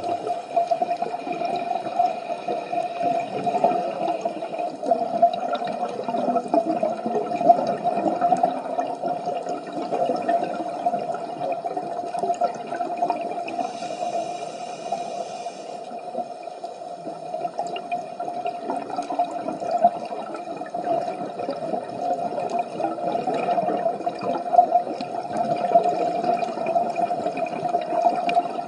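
Underwater sound of scuba divers breathing through their regulators: exhaled bubbles rushing and gurgling continuously, over a steady mid-pitched hum.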